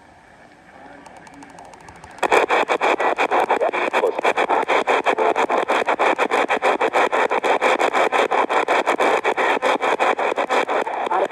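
NOAA Weather Radio warning alarm test signal from a weather radio receiver. Faint static gives way about two seconds in to a loud, harsh, rapidly fluttering rasp that keeps going to the end.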